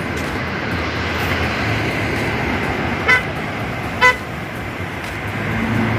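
Steady road traffic passing on a busy city road, with two short car horn toots about three and four seconds in.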